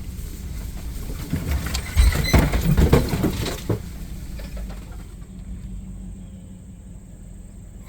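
Vehicle driving slowly off-road, with steady low engine and road noise. A run of knocks and rattles comes about two seconds in, then it goes quieter.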